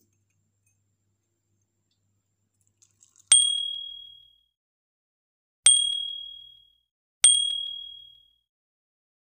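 Three separate clear, high ringing dings, each struck sharply and fading away over about a second, with silence in between.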